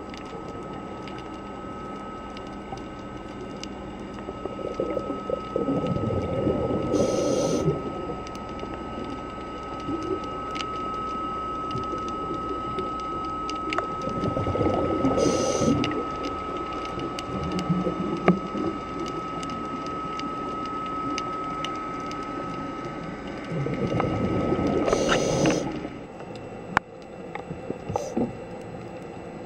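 Scuba diver's exhaled bubbles rushing past the underwater camera three times, about every nine seconds, over a steady high-pitched hum that stops near the end.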